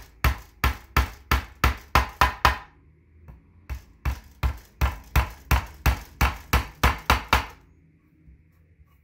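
Claw hammer tapping a small nail through a metal hanger bracket into a wooden ladder rail, about three strikes a second. The strikes come in two runs with a short pause about two and a half seconds in, and stop about seven and a half seconds in as the nail is driven home.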